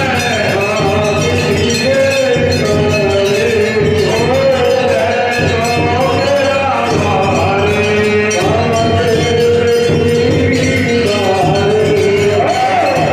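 A man singing a devotional song into a microphone, amplified through a horn loudspeaker, with clinking metal percussion keeping time; the melody wanders and holds long notes.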